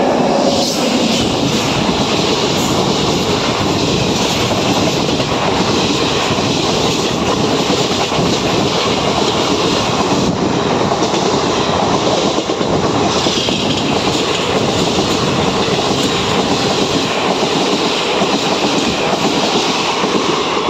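An Indian Railways express, with a WAP7 electric locomotive and sleeper coaches, passing at high speed on the adjacent track close by. It is a loud, steady rush of wheels and coaches with a clickety-clack over the rail joints.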